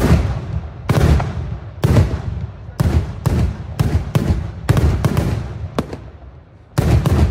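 Daytime fireworks: aerial shells bursting overhead in a rapid series of sharp bangs, each with a rolling echo. The bangs come about once a second at first, then quicken. After a brief lull near the end, a fresh volley starts.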